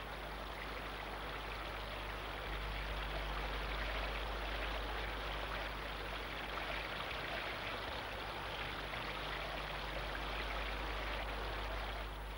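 Water from the Twyford Loo fountain display splashing and running in a steady rushing hiss, with a faint low hum underneath.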